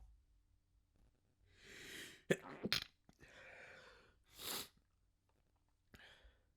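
A person stifling sneezes. A drawn-in breath is followed by two sharp, clipped stifled sneezes about half a second apart, then a breathy stretch and a fuller sneeze about halfway through, with a short breath near the end.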